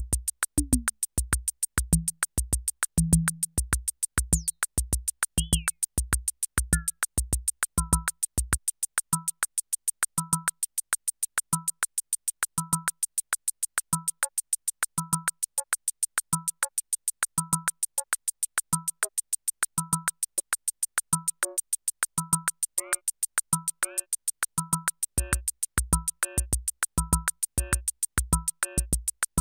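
Roland TR-6S drum machine playing its CR-78 Latin factory pattern: fast steady hi-hat ticks over a kick drum, a lower drum hit and a short two-tone higher hit. The kick drops out about eight seconds in and comes back near the end, and more pitched percussion joins in the last few seconds.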